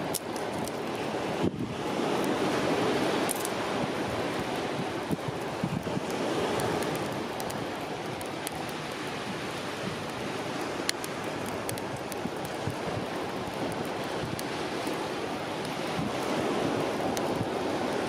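Steady rushing of wind and surf on a rocky seashore, swelling and easing, with scattered sharp little crackles from a small twig fire.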